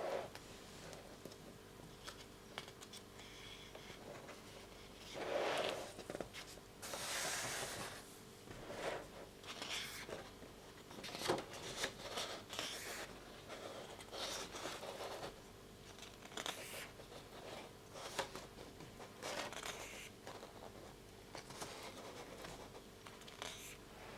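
Paper and packaging handled at close range: irregular rustling, scraping and page-handling sounds with a few sharp clicks, as a book is taken out of its wrapping and leafed through.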